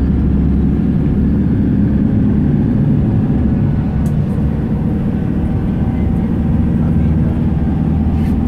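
Steady low rumble of engine and road noise heard from inside the cabin of a moving car.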